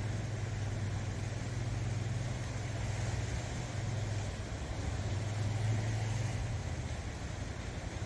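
Sea waves washing and breaking against a rocky shore, an even hiss of surf. Over it runs a steady low engine hum that fades out near the end.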